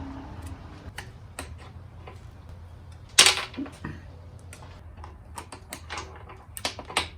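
Scattered metallic clicks and clanks of hand tools and engine parts being handled, with one louder clank about three seconds in.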